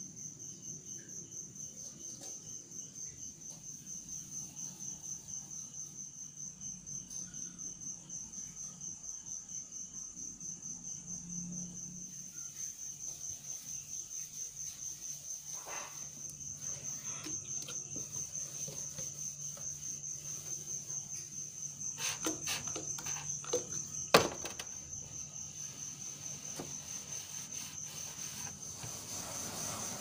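A cricket chirping in a steady, fast-pulsed high trill over a faint low hum. A few light clicks and one sharp knock come about four-fifths of the way through.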